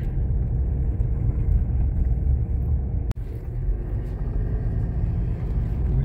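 Road and engine noise inside a moving car: a steady low rumble, with a momentary dropout about halfway through.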